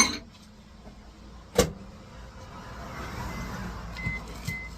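A sharp ringing clack, then a louder knock about a second and a half in, then a microwave oven starting up and running with a steady low hum for its two-minute heating.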